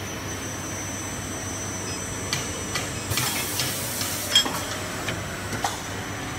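Automatic double-end pipe chamfering machine running with a steady hum. About three seconds in comes a burst of hiss, and there are several sharp metallic clunks, the loudest a little past four seconds.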